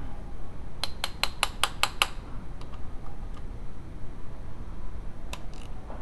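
Ratchet wrench clicking while tightening the bolt of a crankshaft position sensor: a quick run of about seven clicks about a second in, then a few more near the end.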